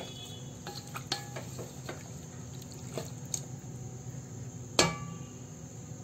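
Wooden spoon stirring curry in a steel pot, with a few light knocks against the pot. Just before the end comes one louder metallic clank that rings briefly, as the spoon hits the pot.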